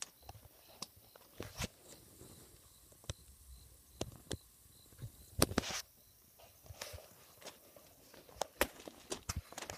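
Irregular footsteps, scuffs and knocks of someone walking in the dark and kicking irrigation tubing, with a louder knock about five and a half seconds in.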